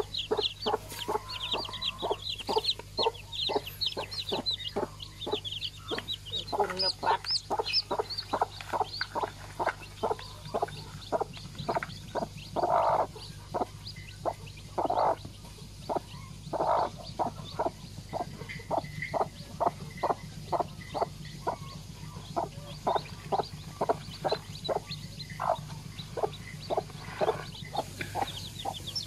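Mother hen clucking steadily, about three short clucks a second, with newly hatched chicks peeping in high thin chirps over the first few seconds and again around seven seconds in.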